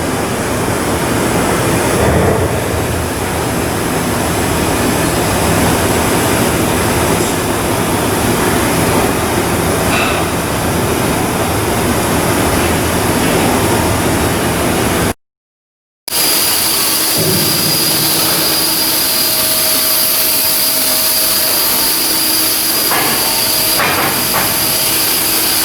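Steady, loud machinery noise from shipyard outfitting work. It breaks off for about a second midway through, then resumes as a different steady hum with a high hiss.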